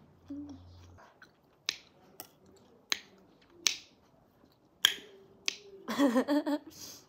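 Sharp, wet mouth smacks and clicks from eating, about six spread over a few seconds. Near the end comes a brief hummed, voice-like sound.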